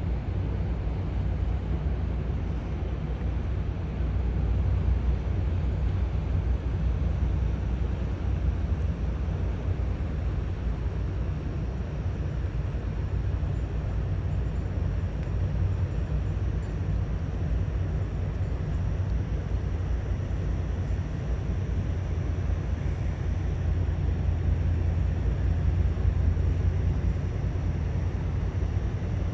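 Steady low rumble of a passing lake freighter's diesel engines, a little louder near the end.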